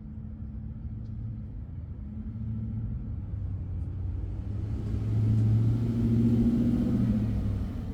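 A motor vehicle passing: a low engine rumble with a steady hum that swells to its loudest about five seconds in and fades near the end.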